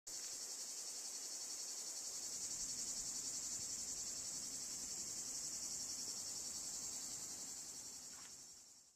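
A chorus of insects trilling in a steady high-pitched drone, fading out near the end.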